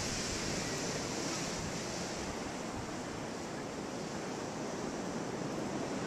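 Steady rushing noise of blizzard wind, with no distinct knocks or steps standing out.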